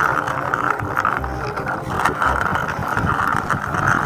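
Steady vehicle-like running noise as a plastic toy dump truck moves along a concrete ledge.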